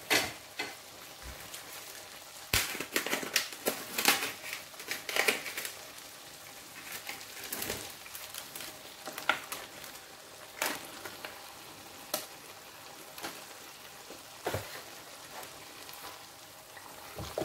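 Rendang spice paste sizzling and crackling in oil in a wok, fried far enough that its oil has separated. Now and then a spatula knocks and scrapes against the wok as beef is added and pushed about.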